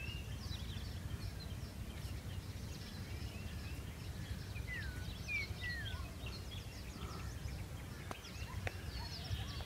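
Wild birds chirping and calling in open scrub, many short chirps with a few whistled notes that sweep up and down around the middle, over a steady low rumble.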